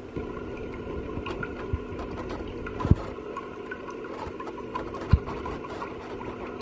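Electric cooktop's cooling fan humming steadily while cooking oil is poured from a bottle into a pan, with two short dull thumps about three and five seconds in.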